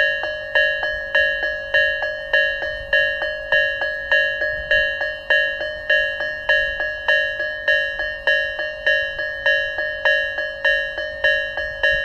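Japanese electronic level-crossing alarm of the Tobu Isesaki type, in its low-pitched, slow version, sounding a bell-like tone that strikes and decays about every 0.6 seconds. It is the warning that a train is approaching and the crossing is closed.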